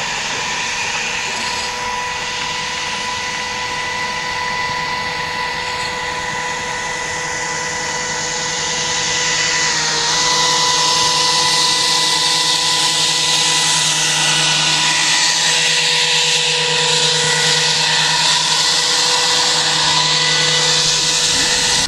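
Camera drone's electric motors and propellers whining steadily on one pitch over a lower hum. An airy rush builds under it from about eight seconds in, as the drone drops close to the water.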